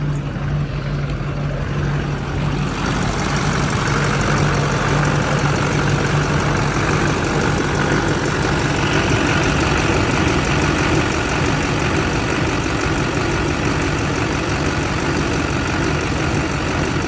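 Duramax LLY 6.6-litre V8 turbodiesel of a 2005 Chevrolet Silverado 2500HD idling steadily, still cold shortly after a cold start. It is muffled at first, then louder and clearer from about three seconds in, heard at the open engine bay.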